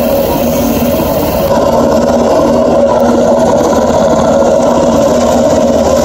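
H-60 Black Hawk-type military helicopter running on the ground with its rotor turning: loud, steady engine and rotor noise with a constant hum.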